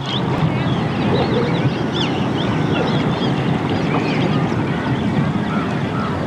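Many birds calling in short overlapping chirps over a steady rush of flowing river water.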